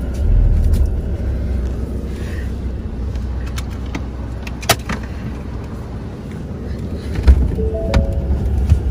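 Vehicle engine idling, a steady low rumble heard from inside the cabin, with a few sharp clicks and knocks. Near the end there is a short run of three stepped tones.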